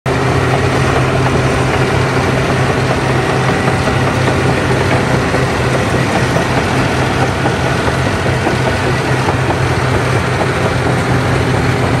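Caterpillar crawler bulldozer's diesel engine running steadily as the machine pushes soil with its blade, a constant low drone under dense mechanical noise.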